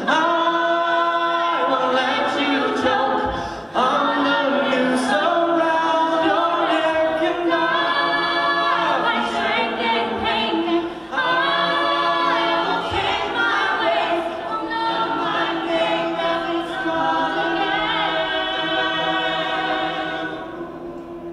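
Mixed-voice a cappella group singing in close harmony, a male lead over the ensemble's held chords with a steady low note underneath. The voices die away near the end as the song closes.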